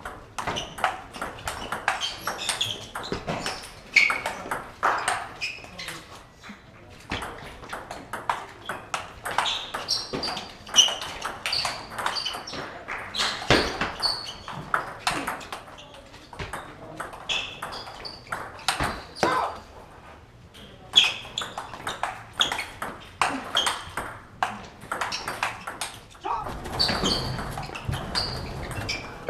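Table tennis rallies: the ball clicking back and forth off bats and table in quick runs of sharp pings, with stretches between points.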